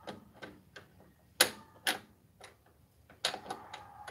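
Irregular sharp clicks and taps of small screws and a hand tool against a plastic TV back cover as screws are fitted by hand. The loudest clicks come a little over a second in and again near two seconds, with a small cluster near the three-second mark.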